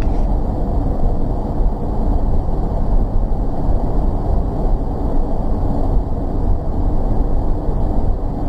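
Steady drone of engine and tyre noise inside a vehicle's cabin cruising at highway speed, about 90 km/h. The sound is mostly deep rumble with little hiss.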